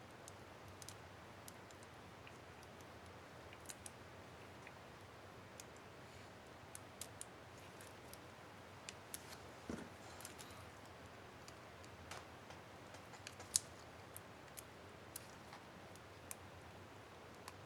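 Faint, scattered small plastic clicks and ticks, with a soft thud near the middle and one sharper click about 13 seconds in: a laptop keycap and its retainer clips being handled and fitted on an HP DV4 keyboard.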